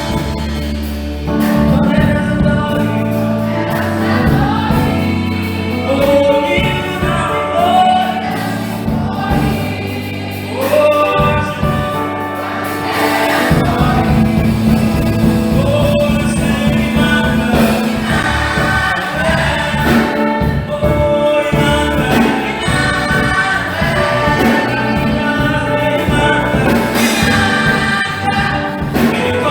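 A choir singing a gospel-style Christmas carol with instrumental accompaniment, the bass line changing about thirteen seconds in.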